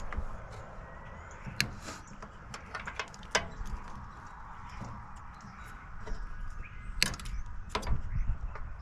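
Scattered sharp knocks and clicks of a microwave oven's metal casing and parts being handled and pried apart, over a low handling rumble. There are a few knocks about two to three seconds in and more near the end.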